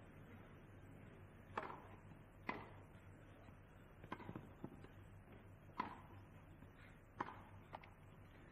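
Faint, sharp pocks of a tennis ball being struck with rackets in a doubles rally, about eight at irregular intervals, over a steady hiss.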